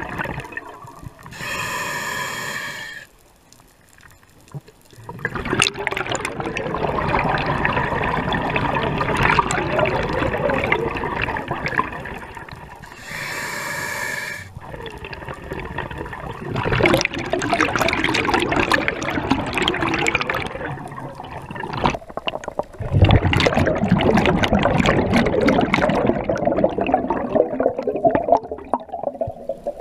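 A scuba diver breathing underwater through an open-circuit regulator. There are two short, pitched inhalations, about two seconds in and again about thirteen seconds in, and each is followed by long rushes of bubbling exhaust.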